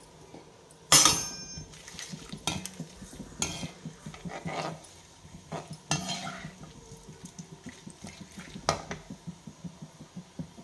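A metal slotted spatula stirring whole spices in hot oil in a kadai, scraping and knocking against the pan with a sharp clatter about a second in and several lighter knocks after. Under it the spices sizzle and crackle as they fry for a tempering (tadka).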